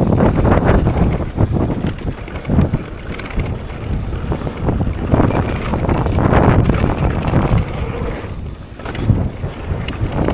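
Wind buffeting the microphone of a mountain bike on a fast downhill trail descent, with the rattle and tyre noise of the bike over rough ground. It eases briefly about eight seconds in.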